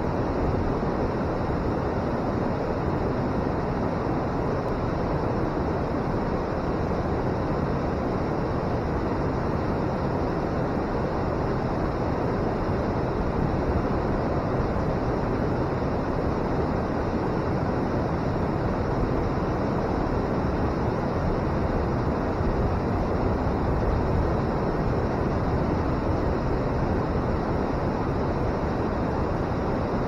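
River water pouring over a weir and churning below it, running high: a steady, unbroken roar with its weight in the low and middle range.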